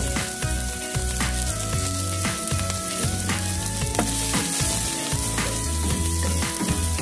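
Diced garlic sausage sizzling in hot oil in a wok, a wooden spatula stirring and scraping the pan now and then, over background music.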